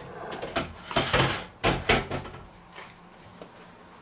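Knocks and clunks of a filled glass jar and a plastic canning funnel being handled on a wooden cutting board: several short knocks in the first two seconds, then quieter handling.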